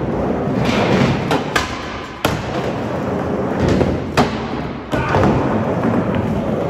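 Skateboard wheels rolling on a smooth concrete floor, broken by several sharp clacks of the board popping and landing.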